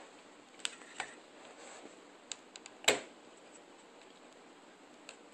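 Small clicks and taps of a tiny Phillips screwdriver and fingers on the screws and plastic back of a Samsung Galaxy S Captivate phone, a few scattered clicks with one louder knock about three seconds in.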